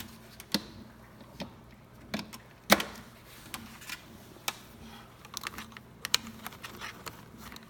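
Irregular sharp plastic clicks and light knocks, about a dozen, the loudest a little under three seconds in, from handling a replacement 5 V power adapter and plugging its lead into the TV box.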